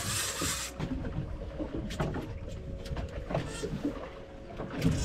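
Scattered knocks and clunks aboard a drifting fishing boat, over water moving against the hull and a faint steady hum. A short hissing rush fills the first second.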